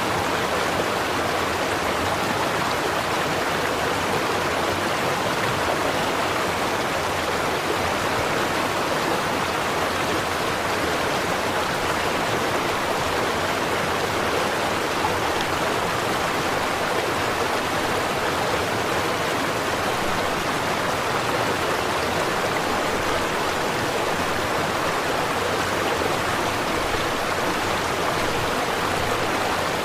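A small stream or brook flowing over stones, a steady rushing babble of water.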